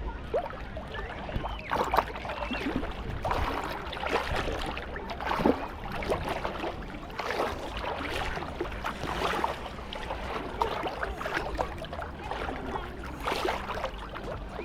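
Small waves washing up and splashing at a sandy shoreline in irregular surges every second or two.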